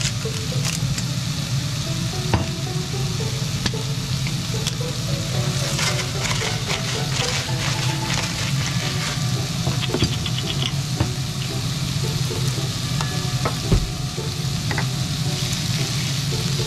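Pork belly slices sizzling as they fry in a nonstick frying pan, a steady hiss with scattered light clicks. A louder knock comes about three-quarters of the way through.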